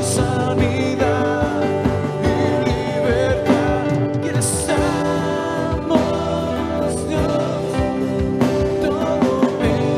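Live Christian worship band playing a song: singing over keyboard, guitars and drums, with cymbal crashes now and then.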